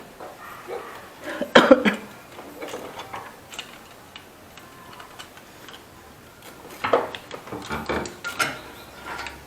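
Metal clinks and knocks of tools and engine parts being handled during a motorcycle engine teardown. The loudest cluster comes about a second and a half in, with more scattered knocks around seven to eight and a half seconds.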